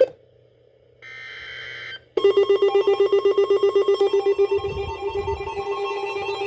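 Emergency Alert System header: the tail of one burst of buzzy digital data, then a second burst about a second long, then from about two seconds in a loud, rapidly pulsing alert tone. The sequence signals that a new emergency warning is about to be broadcast.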